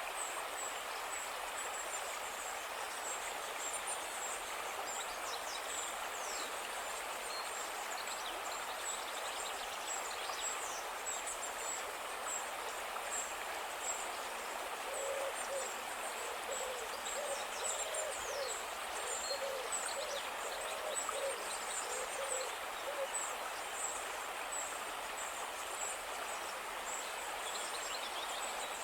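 Outdoor nature ambience: a steady rushing wash like running water, with many short high chirps throughout. About halfway through comes a run of low calls repeated at an even pace for several seconds.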